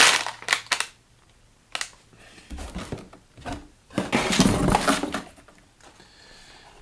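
Cardboard and packaging being handled: a shipping carton's flap is opened and a small retail box is pulled out of it, rustling and scraping with a few low knocks. A few crinkling clicks come in the first second.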